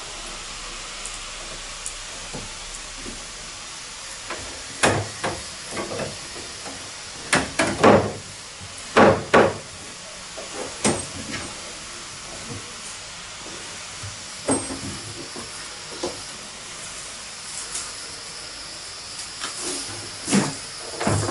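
Handling noise from fitting plastic water pipe and hose at floor level: scattered short knocks, taps and rustles, in a few busier clusters, over a steady hiss.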